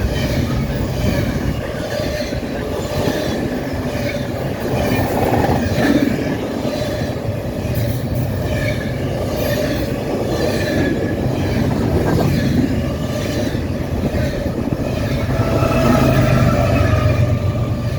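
CSX intermodal freight train rolling past at speed: a steady, loud rumble of wheels on rail, with faint wavering wheel squeals over it.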